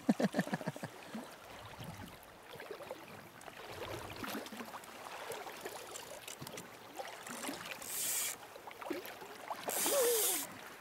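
A hooked king salmon (chinook) thrashing and splashing at the surface twice near the end, close to the landing net, over the steady hiss of a shallow river. A rapid clicking at the very start is the loudest sound.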